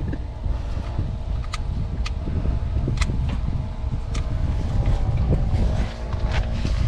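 Wind rumbling on the microphone, with a few sharp light clicks scattered through it from hands working the neutral safety switch and its fittings on the transmission.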